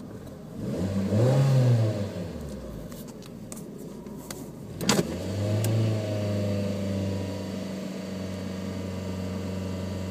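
2007 Hyundai Tiburon GS's 2.0-litre DOHC four-cylinder revved from idle: a quick blip about a second in that rises and drops back, then a sharp click near the middle, after which the engine is held steady at about 3,000 rpm.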